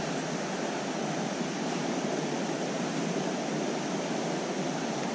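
Shallow creek water running steadily over stones.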